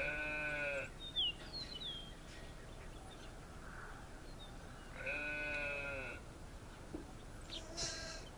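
Sheep bleating twice, each bleat about a second long and wavering, roughly five seconds apart. Brief faint bird chirps fall between and after the bleats.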